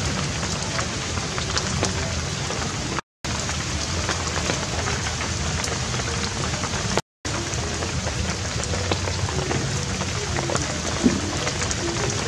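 Steady rain with water dripping from a thatched roof onto wet wooden boards, a dense hiss sprinkled with small drop ticks. The sound cuts out completely for a moment twice, about three and seven seconds in.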